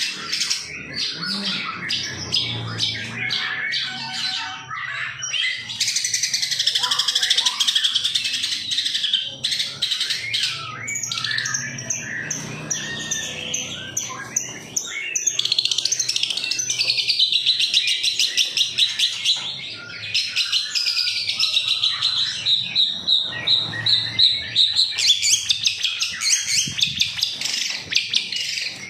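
Long-tailed shrike (pentet) singing a continuous, varied chattering song with fast runs of rapidly repeated notes and trills. This is the kind of song played as a lure to set a caged shrike singing.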